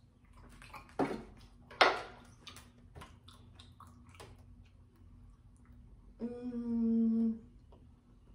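A person tasting butter off a spoon: a few wet lip smacks and mouth clicks in the first two seconds, then a hummed "mmm" held for about a second, a little past the middle.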